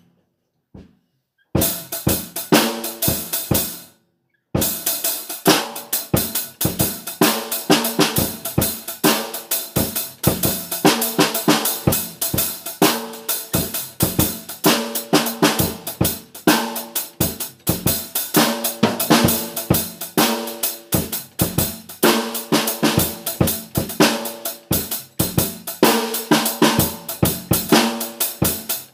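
Music led by a drum kit (snare, cymbals, hi-hat and bass drum) keeping a steady beat under pitched instrument parts. It comes in about a second and a half in, after a brief silence, and drops out for a moment around four seconds.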